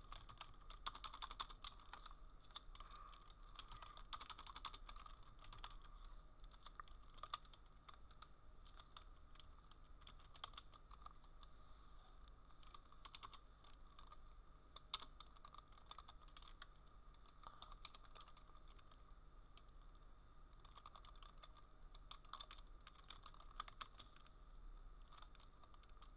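Faint typing on a computer keyboard: quick, irregular keystroke clicks in bursts with short pauses, over a steady low hum.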